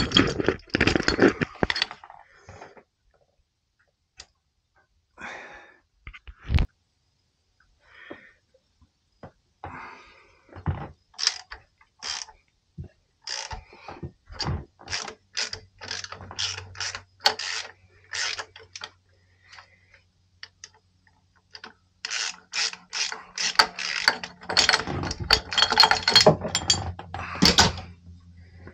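Ratchet wrench clicking in runs of sharp, evenly spaced clicks as the crankshaft pulley nut on a Yanmar 3GM30 diesel is worked loose, with scattered clinks of steel tools.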